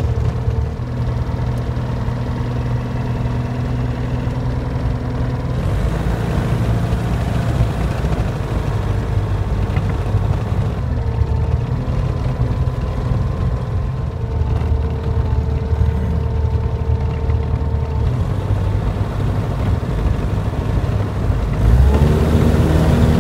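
Jabiru 170 light aircraft's four-cylinder engine and propeller running at low power while taxiing on a dirt airstrip, heard inside the cabin, the engine note shifting about five seconds in and getting louder near the end.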